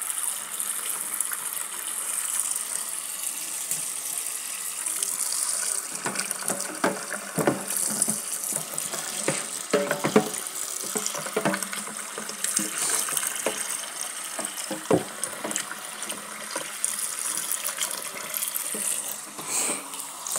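Tap water running into a stainless steel sink. From about six seconds in, there are repeated knocks and clatters as hairbrushes are moved around against the sink.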